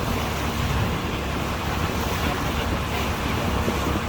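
Boat engine running with a steady low hum, under the rush of wind and water at sea.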